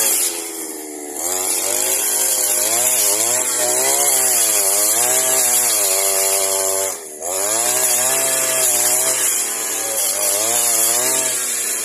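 Small two-stroke brushcutter engine running hard as its blade cuts wood, the pitch sagging and recovering again and again as the blade bites; it dips briefly about seven seconds in.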